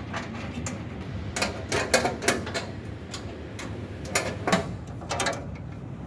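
Irregular light clicks and knocks, sometimes in quick clusters, over a steady low hum.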